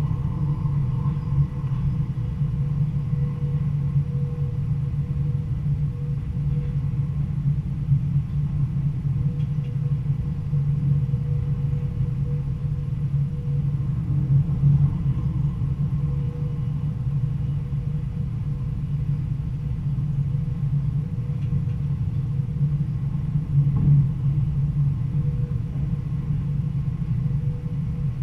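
Stadler GTW diesel-electric multiple unit running along the line: a steady low rumble of engine and wheels on the rails, with a faint steady whine above it.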